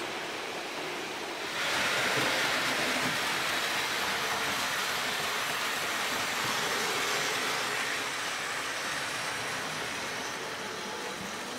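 Märklin HO-scale model train running on the layout track: a steady rolling whir of its metal wheels on the rails and its motor, getting louder about two seconds in and fading toward the end.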